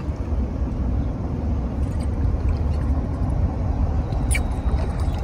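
Raid Japan Killer-D topwater lure, with its duralumin diving lip, being reeled across the surface and churning the water as it wobbles. Under it runs a steady low rumble, with a faint sharp tick about four seconds in.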